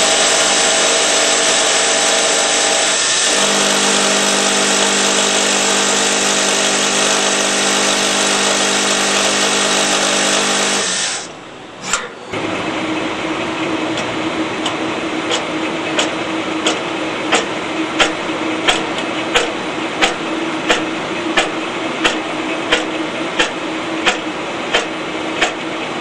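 Citizen Swiss-type CNC lathe machining a small turned part: a loud, steady whine of spindle and cutting with several steady tones, which drop lower about 3 s in. About 11 s in it cuts out and, after a single click, gives way to a steadier hum with regular sharp ticks, about three every two seconds, as the polygon-turning cutter works on the part.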